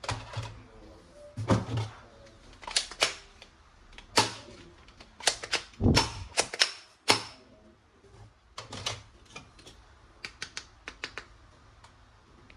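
Hard plastic toy parts being handled: irregular sharp clicks and clacks, some in quick runs, densest in the first half and thinning to lighter ticks near the end.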